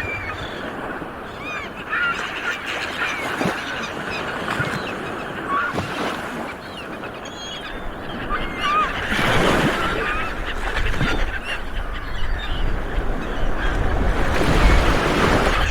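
Sea waves washing on the shore with birds calling over them in many short, rising and falling calls. The surf swells louder about nine seconds in and again near the end.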